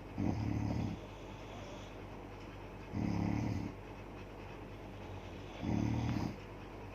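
A woman snoring: three snores, each under a second long, coming about every two and a half to three seconds.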